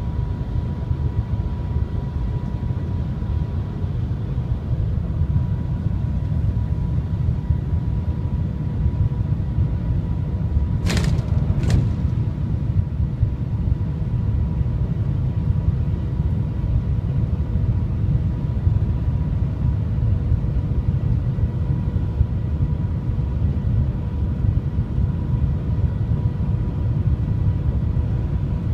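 Cabin noise of the Shanghai Transrapid maglev train travelling at about 300 km/h: a steady low rumble with a faint steady high tone. Two sharp clicks come about eleven seconds in.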